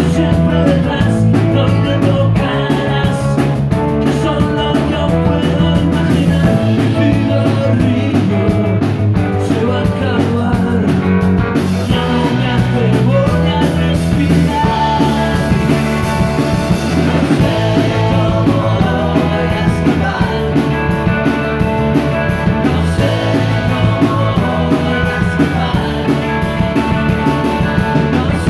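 Live rock band playing: electric guitars and drum kit, loud and unbroken.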